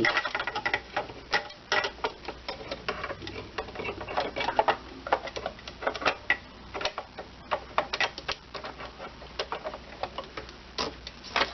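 Irregular clicks and light taps of hard plastic and metal sewing machine parts being handled and fitted back into place on a Brother CS6000i, as the needle plate is seated over the feed dogs.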